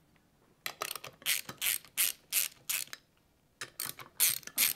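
Hand ratchet with a 10 mm socket clicking in quick back-and-forth strokes, undoing the top cover bolts on a Braaap ST250 engine; two runs of clicks with a short pause between them.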